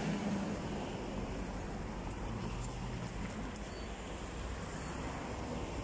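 Steady road traffic on a highway: vehicle engines and tyres going by, with no single sharp sound.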